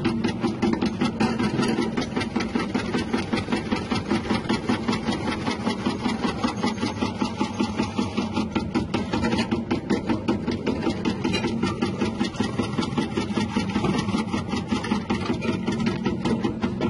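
Electric chip-slicing machine with a 180-watt motor running, making a fast, even mechanical clatter.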